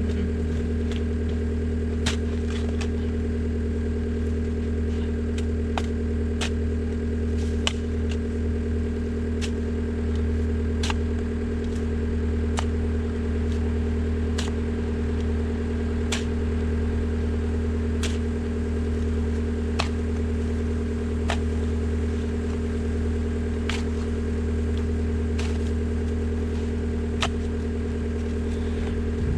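Engine of a digging machine idling steadily, with short sharp clicks or knocks about once a second over it.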